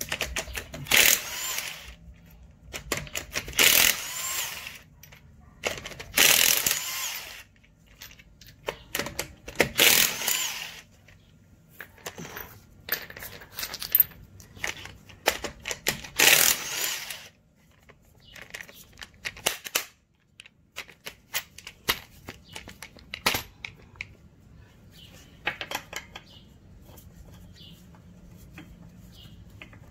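Cordless impact wrench run in about five short bursts of a second or so each, as on a wheel's lug nuts, with sharp clicks and clatter of tools and parts in between; the bursts stop after about the first half.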